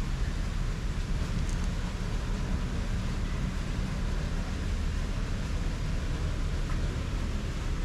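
Steady outdoor background noise: a low rumble under an even hiss, with no distinct event.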